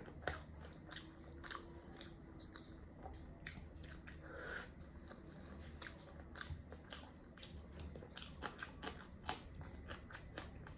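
A person chewing and eating chicken curry, with many irregular small mouth clicks and smacks.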